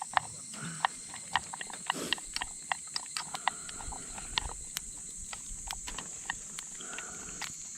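Wood campfire crackling, with irregular sharp pops and snaps of varying loudness, over a steady high hiss.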